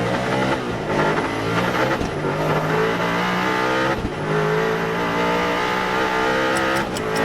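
Koenigsegg Agera RS twin-turbo V8 accelerating hard from a launch-control start. Its engine note climbs and is cut by quick upshifts about two and four seconds in.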